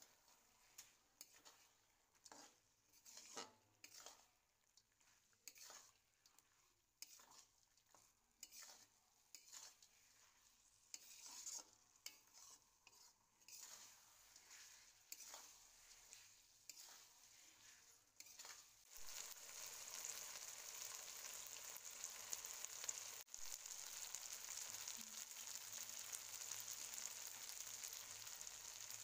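Steel spatula stirring and scraping a gourd, potato and fish-head curry in a wok, in short strokes about once a second. About two-thirds of the way through the stirring stops and a steady sizzle of the curry frying takes over as the dish finishes cooking.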